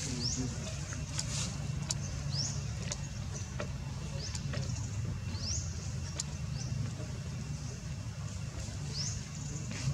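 Baby monkey giving short, high squeaks that slide upward, one every second or so, over a steady low rumble.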